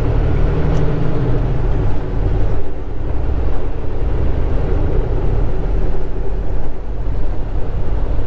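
Semi-truck diesel engine running, heard from inside the cab as the truck rolls slowly after a turn, with a steady low rumble that dips briefly about two and a half seconds in.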